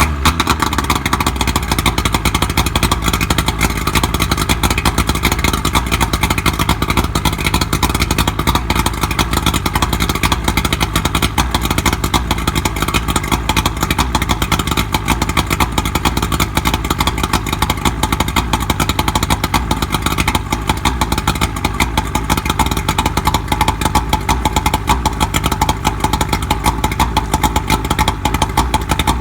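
Johnson 70 hp outboard motor running steadily just after starting.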